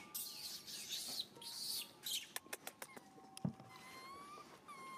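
Scratchy rustling for the first couple of seconds, then a few sharp clicks and a thump. Near the end a baby long-tailed macaque gives thin, rising squeaky cries.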